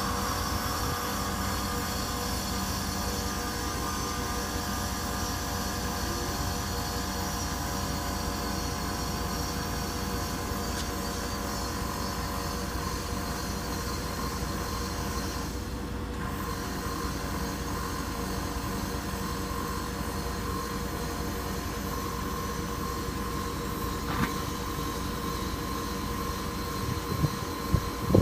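Small electric tyre compressor running steadily, pumping air through a coiled hose into a space-saver spare tyre, with a constant motor hum and a steady whine.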